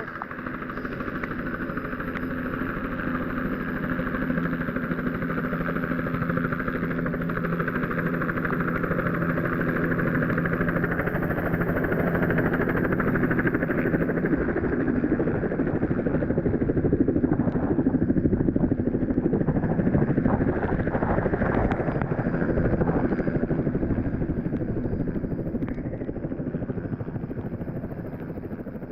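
Helicopter engine and rotor running steadily, growing louder toward the middle and then fading away.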